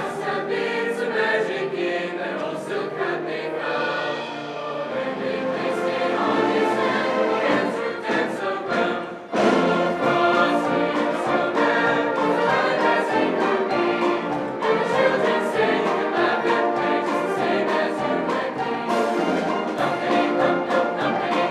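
Live choir singing with instrumental accompaniment. The music thins out briefly about nine seconds in, then comes back in suddenly at full strength.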